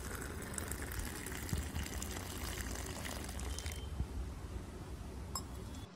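Hot milk being poured into a glass, a soft, steady pouring hiss that thins out about two-thirds of the way through.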